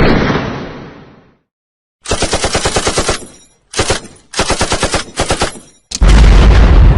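Machine-gun fire sound effect: a sudden loud bang that fades over about a second, then four rapid bursts of automatic fire at roughly ten rounds a second, and near the end a very loud, deep blast.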